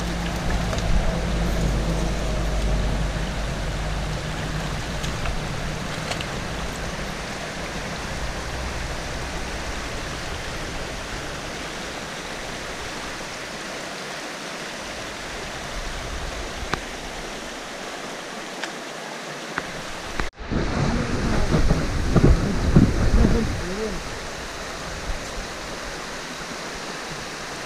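River water rushing steadily. About twenty seconds in the sound breaks off abruptly and returns with a few seconds of louder, uneven noise before settling back to the steady rush.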